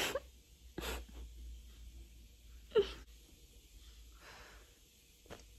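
A few short breathy sounds from a person close to the phone's microphone: one about a second in, a sharper one near three seconds, and a softer one after four seconds, with a faint click near the end.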